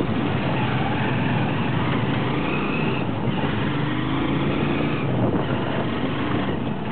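Motorcycle taxi's small engine running steadily, heard from a seat on board while riding, under a constant rush of road noise.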